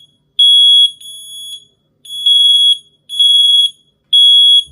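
Interconnected ZYTA smoke alarms sounding together, set off while pairing the units as one group. They give shrill, high-pitched beeps of about half a second each, unevenly spaced, four loud ones and a fainter one.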